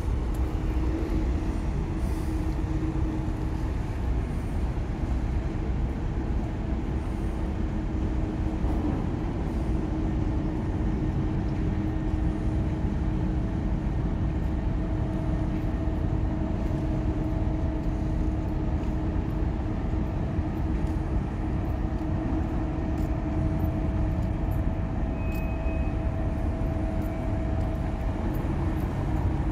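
Steady low rumble of a large ship's engines and machinery, with a constant droning hum on top.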